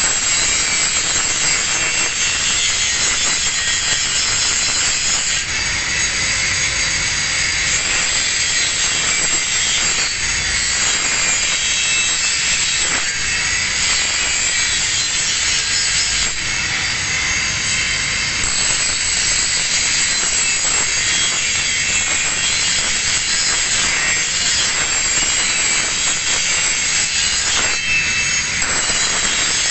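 Angle grinder grinding a steel plate edge to a single bevel for a weld joint, a continuous loud hissing grind.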